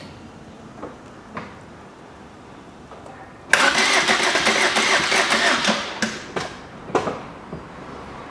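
Starter motor cranking the Fiat Doblo's 1.3 Multijet diesel engine in a fast, even rhythm for about two and a half seconds without it starting, then stopping, followed by a few short knocks. The engine tries to catch, but the battery voltage is too low.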